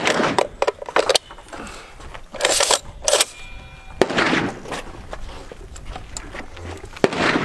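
Barrett M82A1 .50-calibre semi-automatic rifle being handled and readied to fire: a few sharp clicks and clacks from the magazine and receiver, with short rustling and shuffling noises between.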